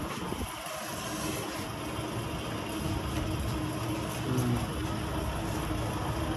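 Steady street background noise with low traffic rumble, a little louder in the second half, and a brief faint tone about four seconds in.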